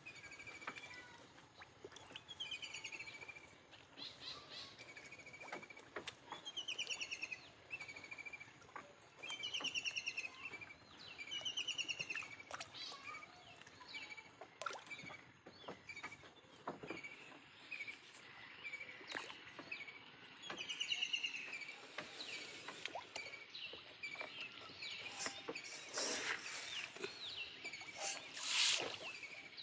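A bird singing a short phrase that falls in pitch, repeated every few seconds, over scattered short clicks and knocks that grow louder near the end.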